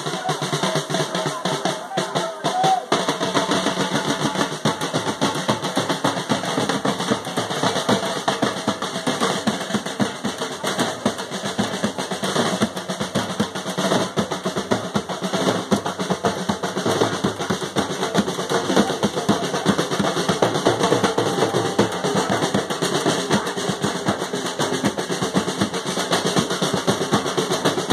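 A procession drum band beating a fast, dense, continuous rhythm: large bass drums and side drums struck with sticks. The deeper drum strokes come in fully about three seconds in.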